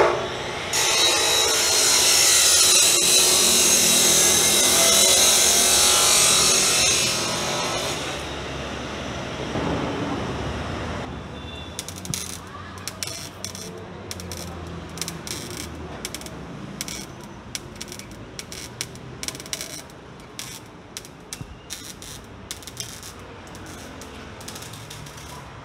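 Metalwork on a car's exhaust pipe: a loud, harsh rasping noise for about seven seconds, fading by about eleven seconds in, then quieter scattered clicks and knocks.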